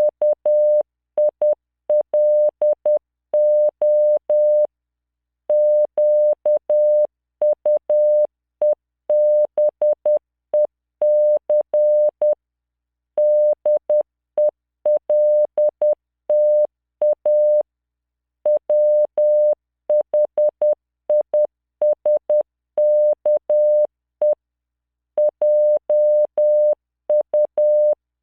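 Morse code at 10 words per minute from LearningMorse training software: a single 600 Hz beep keyed in short and long pulses (dits and dahs). The pulses come in letter groups, with pauses of about a second between words.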